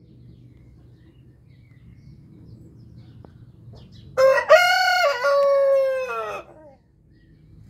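A rooster crowing once, a single cock-a-doodle-doo of about two and a half seconds starting about four seconds in, its long last note sliding down in pitch as it ends.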